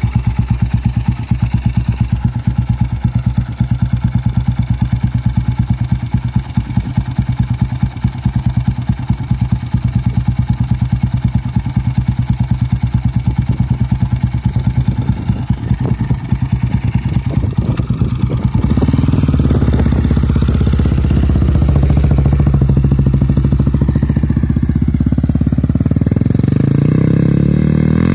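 Rotax 600 single-cylinder four-stroke engine of a flat track motorcycle idling with distinct, evenly spaced firing pulses. About two-thirds of the way in it is revved and runs harder as the bike pulls away, rising in pitch near the end.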